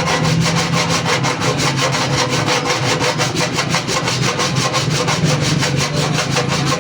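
Rapid, even rasping strokes, about seven a second, like a hand tool sawing or scraping at something, over a steady low hum.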